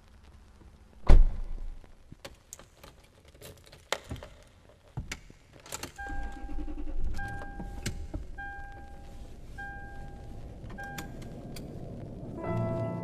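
Car keys jangling with sharp clicks and knocks, the loudest a door-like thunk about a second in. About halfway through, the car's low running rumble comes in, with a warning chime beeping about once every second. Piano music starts near the end.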